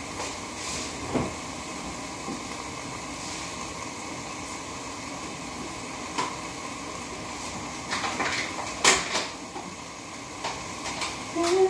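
Kitchen sounds: a steady low hiss with a few sharp clicks and knocks, the loudest about nine seconds in. A woman starts humming just before the end.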